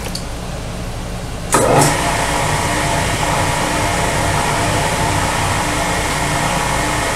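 Milling machine switched on about a second and a half in, its motor and spindle then running steadily in low back gear for power-tapping a 1/4-20 hole. A steady low hum lies under it.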